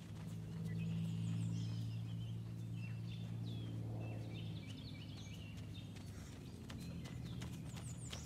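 Songbirds chirping in short falling notes over a steady low hum. The hum is loudest in the first half.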